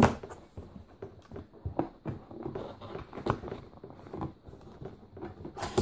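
Hands opening a cardboard box: irregular light knocks, scrapes and rustles of cardboard as the lid and flaps are worked open, with a sharper knock right at the start.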